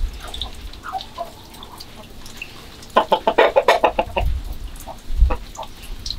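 Chickens clucking: a few soft clucks at first, then a quick run of about ten loud clucks about three seconds in, lasting about a second, and a few scattered clucks after.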